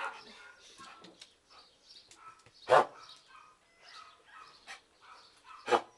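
A dog barking twice, with two short, loud barks about three seconds apart, amid softer scattered scuffling and chirping sounds.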